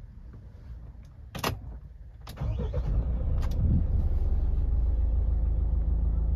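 Two sharp clicks, then the Mahindra Thar's engine starts about two and a half seconds in. It flares briefly and settles into a steady, low idle.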